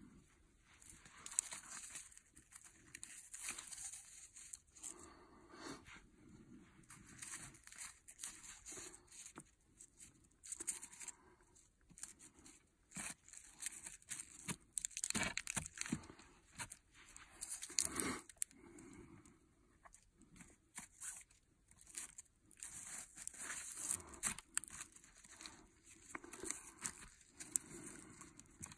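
Irregular rustling, crunching and cracking of branches and brush being handled in the woods, in scattered bursts with no steady rhythm.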